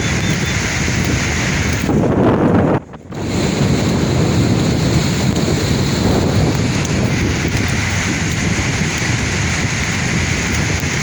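Sea waves breaking and washing in a steady surf noise, with a louder surge about two seconds in. The sound drops out sharply for a moment about three seconds in, then the surf resumes.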